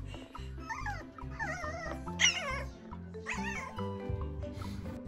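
Two-month-old toy poodle puppy whining in several high, wavering cries, the loudest about two seconds in, over background music with a steady beat.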